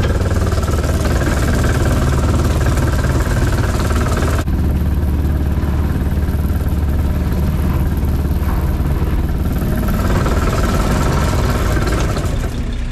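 A shrimp trawler's diesel engine running steadily with a loud low drone, overlaid with a noisy mechanical hiss from the deck that drops away about four seconds in and comes back near the end.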